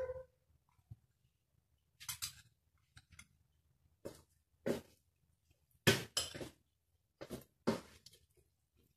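Metal spoon clinking and scraping against a stainless-steel bowl as a thick mixture is stirred, in about ten irregular strokes, the loudest about six seconds in.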